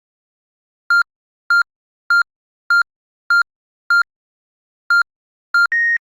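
Home alarm system beeping: eight short identical electronic beeps, the first six evenly spaced about twice a second, then two more after a short pause, ending in a slightly longer, higher-pitched beep.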